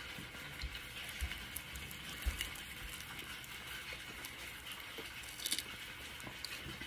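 Faint eating sounds from a meal taken by hand: quiet chewing and fingers handling food, with scattered small clicks and taps and a short crisp noise about five and a half seconds in.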